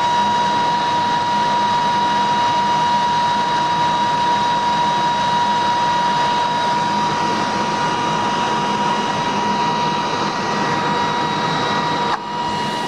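Ampex 2-inch quadruplex videotape recorder running tape: a steady high whine over a constant hiss. The whine dips briefly near the end.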